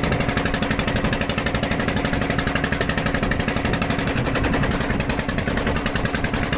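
A small engine running steadily, its firing a fast, even pulse.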